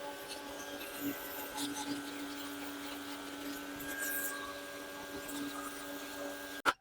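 Electric pressure washer's motor and pump running steadily: a constant, even hum. It ends in a sharp click near the end, then cuts off abruptly.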